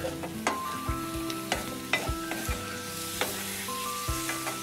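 Wooden spatula stirring cooked potato pieces and fresh coriander in a metal kadai, knocking and scraping against the pan in quick, irregular strokes over a light sizzle.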